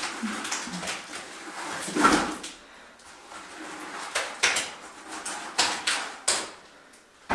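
Wet cement mortar being tipped out of a bucket onto a floor screed: the scrape and knock of the bucket and slaps of mortar landing, with a louder scrape about two seconds in and a run of sharp knocks in the second half.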